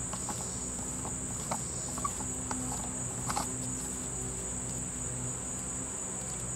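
A steady high insect drone with a low hum beneath it, and a few faint light clicks as a black plastic drain tailpiece is turned by hand onto the drain of a stainless steel bowl sink.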